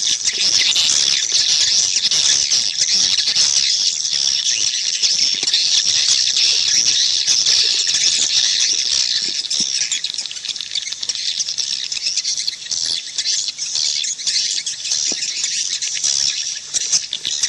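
Swiftlets calling in a dense chorus, many high twittering chirps overlapping without a break: a swiftlet call recording of the kind played to lure the birds into a nest house.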